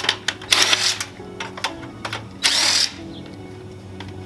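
A handheld power tool run in two short bursts of about half a second each, each one spinning up and winding down, with light clicks and knocks between them as scrap HVAC coil is broken down for its copper.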